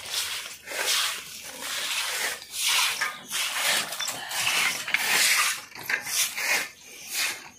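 Short hand broom sweeping water across a wet, muddy floor in repeated scraping strokes, irregular and roughly one or two a second.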